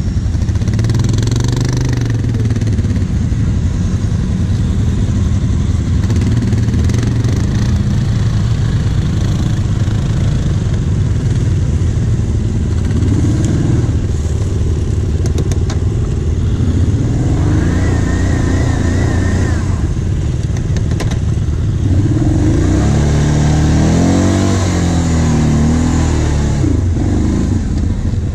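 Quad (ATV) engines running while riding over rough sandy terrain, the revs rising and falling with the throttle, with the strongest revving in the last third.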